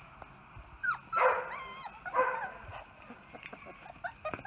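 Puppy giving three short, high-pitched whining yelps about a second in, the middle one the loudest, followed by a few faint clicks near the end.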